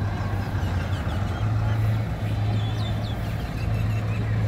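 Steady low machine hum running throughout, with a few short high chirps, like small birds, about two and a half to three seconds in, over faint background voices.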